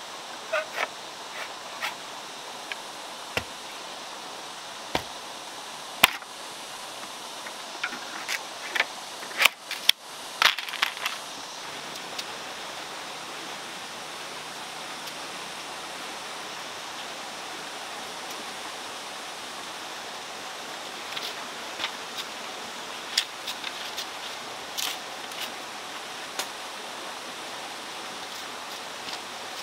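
Scattered sharp knocks and clicks of bamboo being worked by hand, first a pole knocking in a bamboo tube, then a machete working a long bamboo strip, over a steady background hiss. The knocks come thickest in the first ten seconds, with a sparser run of clicks later on.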